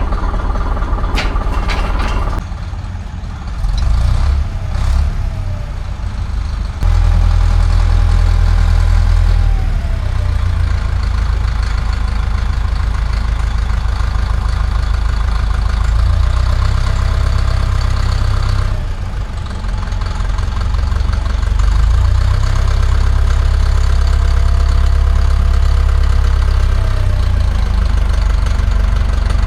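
Heavy diesel engine of a Cat D4 bulldozer running with a deep, steady rumble, its sound changing abruptly a few times.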